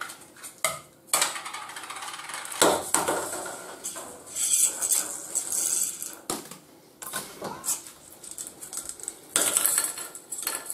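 Small cable spool rattling and clattering in the hand as stranded wire is pulled and unwound from it, in irregular bursts.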